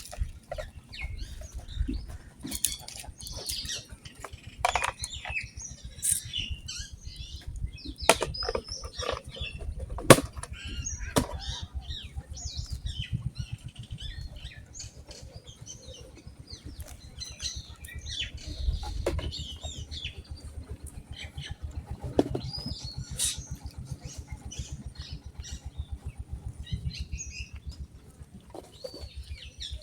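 Birds chirping: many short high calls from several birds, over an uneven low rumble, with a few sharp clicks and a faint steady high whine.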